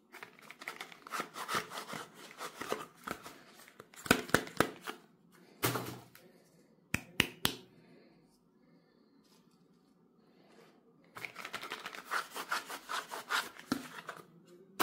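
Cardboard soap boxes being handled and opened: crackling and tearing in two long bursts, with a few sharp taps between them and a quiet pause around the middle.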